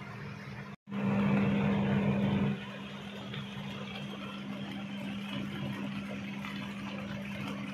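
A motor vehicle engine running with a steady low hum over even background noise. It is louder for a second or so just after a brief dropout near the start, then carries on steadily.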